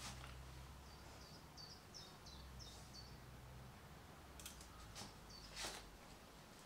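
Small scissors snipping elderflower stalks, a few faint sharp snips, one at the start and three in the second half. A bird chirps a quick run of about eight short high notes in the first half, over a faint low hum.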